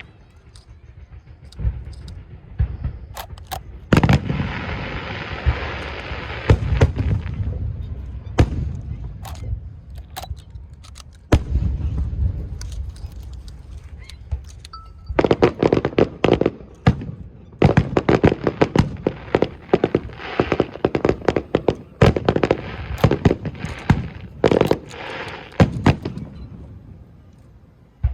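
Aerial fireworks going off: sharp bangs and dense rapid crackling, in one heavy volley about four seconds in and a longer one from about halfway to near the end.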